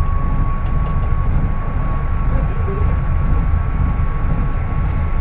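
Scania K250UB city bus engine running under way with a steady low drone and a thin, constant high whine over it. The engine is at high revs, "gritando bastante" (screaming a lot).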